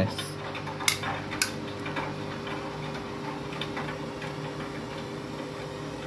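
Front-loading washing machine tumbling a load of backpacks in water: a steady motor hum from the turning drum, with a couple of sharp clicks about a second in as the load knocks against the drum.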